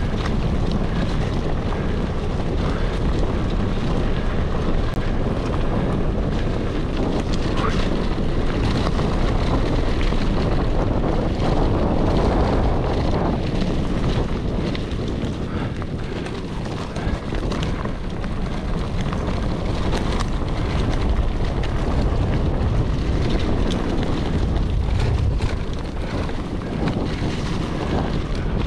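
Steady wind buffeting the action camera's microphone, with the rattle and clicks of a Cube Stereo One22 full-suspension mountain bike riding a rough forest trail.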